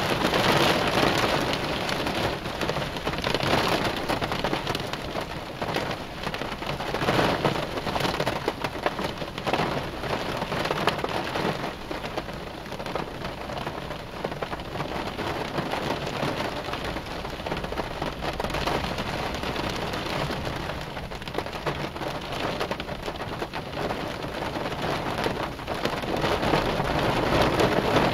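Heavy rain pouring down on a car during a thunderstorm, with thunder rumbling that swells and fades several times and grows louder near the end.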